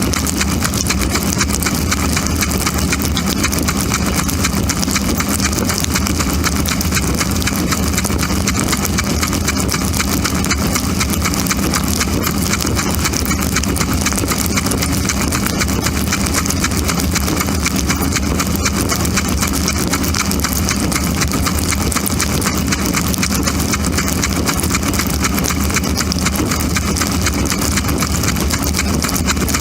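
Dishwasher running, heard from inside the wash tub: water spraying and splashing steadily over a constant motor hum.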